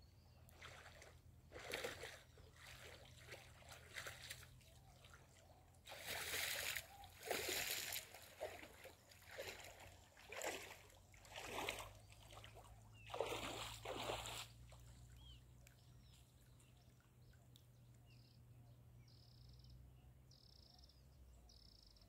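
Small waves lapping and splashing at the shoreline right by the microphone, in irregular splashes every second or two, then settling after about 15 seconds to a faint low rumble with a few short high-pitched chirps near the end.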